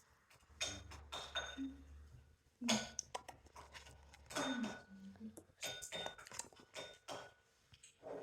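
Light clinks and taps of small plastic dishes and a utensil being handled on a counter, irregular and scattered, with a low hum under the first half.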